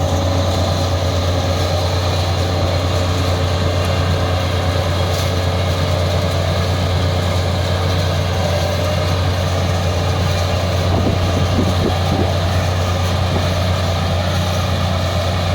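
Dashmesh 9100 combine harvester running steadily, with a loud, even engine drone and a deep hum.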